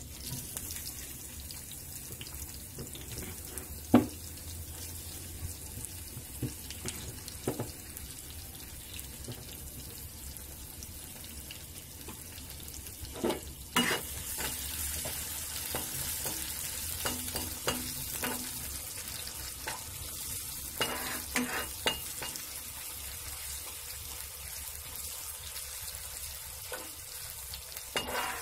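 Chopped onions sizzling as they fry in hot oil in a metal kadhai, with occasional sharp knocks and scrapes of a utensil against the pan. The sizzle grows louder about halfway through.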